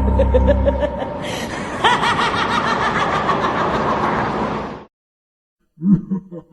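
Chuckling laughter sound effect, more laughs joining in about one and two seconds in, cutting off suddenly about five seconds in. After a second of silence, another laugh starts in short rhythmic bursts.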